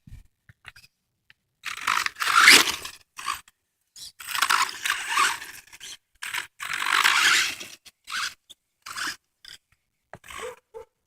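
An RC car's tyres scraping and spinning over gritty dirt as it drives up a slope, in three loud scraping bursts of a second or so each, with short scratchy bits near the end.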